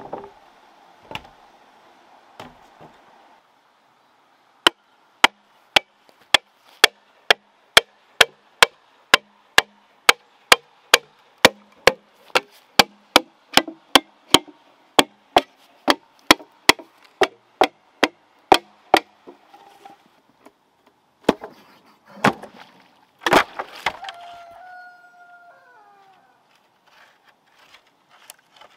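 Machete chopping into a bamboo culm with sharp, even strikes about two a second for some fifteen seconds. A few louder cracks follow as the bamboo splits.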